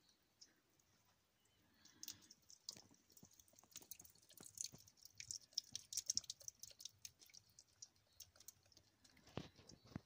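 Faint, irregular crackling and clicking that starts about two seconds in and is densest in the middle, with a couple of stronger knocks near the end.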